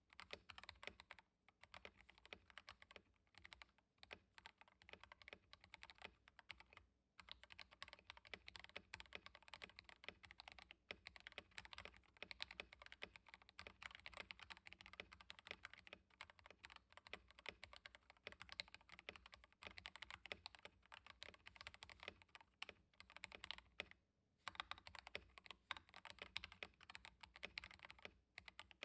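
Tes68 mechanical keyboard with lubed CIY Evo Red linear switches, Holee-modded stabilizers and Honey and Milk keycaps, typed on continuously: a rapid stream of key clacks, several a second, broken by short pauses about one and a half, four, seven and twenty-four seconds in.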